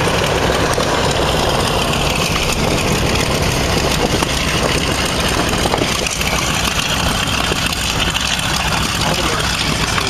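Piston aircraft engines running loudly and steadily at taxi power. A B-25 Mitchell bomber taxis close by with its propellers turning.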